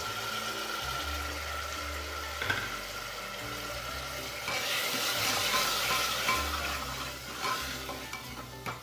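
Onions and a freshly added ground tomato-spice paste sizzling in hot oil in an aluminium pressure cooker while a spoon stirs them, with a few light knocks of the spoon on the pot. The sizzle grows louder a little before halfway.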